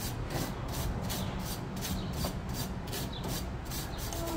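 Stiff brush scrubbing a rear brake caliper bracket in quick back-and-forth strokes, about four to five a second, scraping off rust and debris where the new pad hardware will sit.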